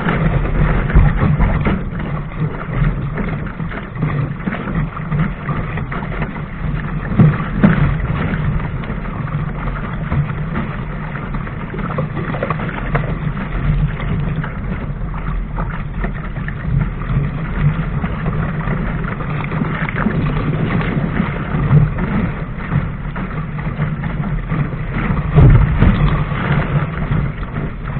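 Water rushing and splashing along the hull of a Laser sailing dinghy planing through chop, mixed with wind buffeting the camera microphone. Several louder slaps of waves against the hull stand out, the biggest near the end.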